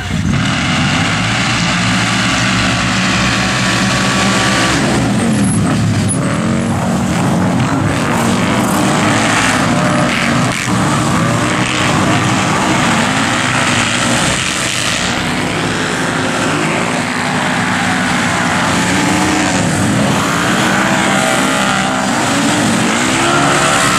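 A pack of side-by-side UTV engines revving hard together at a race start, coming in suddenly and loudly. The engine pitch then keeps rising and falling as the machines accelerate, shift and pass.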